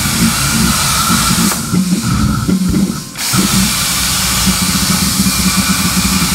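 Plasma cutting torch on a PlasmaCam CNC table, cutting steel sheet: a loud, steady hiss over a buzzing hum. Midway the hiss drops out for about a second and a half, then comes back.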